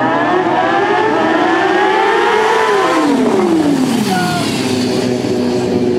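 A 2016 Kawasaki Ninja 636's inline-four engine revving, its pitch climbing as the bike approaches, then dropping steeply about two and a half seconds in as it passes close by. A steady engine note carries on near the end.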